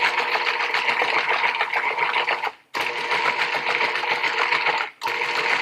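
Food processor motor running steadily with a whirring hum as it mixes cheesecake batter. It cuts out briefly twice, about halfway through and near the end, and starts again straight away each time.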